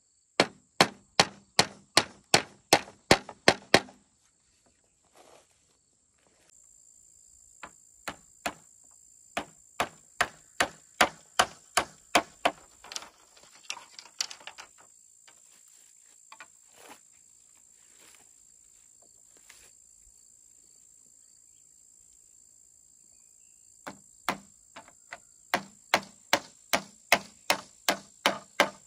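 Repeated sharp blows of a hand tool, in three runs of quick strikes about two to three a second with pauses between. A steady high insect drone sets in a few seconds in and carries on underneath.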